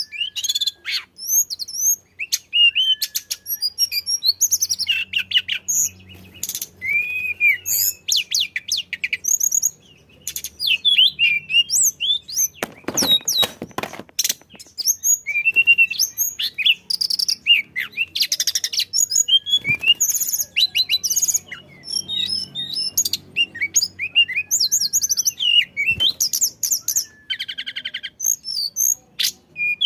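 A tledekan songbird singing non-stop: a rapid stream of high, varied chirps, short trills and quick up-and-down whistles with barely a pause. A short rasping burst cuts in about thirteen seconds in.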